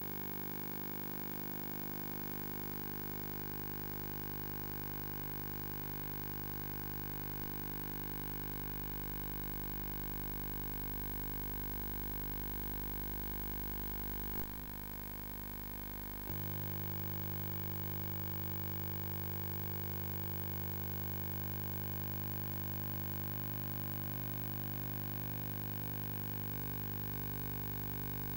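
Steady electrical hum with a stack of buzzing overtones and faint hiss, and nothing else heard. There is a single click about 14 seconds in, and about two seconds later the hum abruptly steps louder and heavier.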